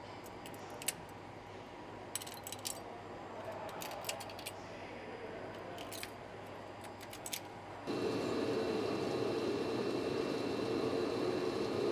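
Industrial workshop ambience: scattered light metallic clicks and ticks over a low hum. About eight seconds in it changes abruptly to a louder steady machine hum with a faint high whine.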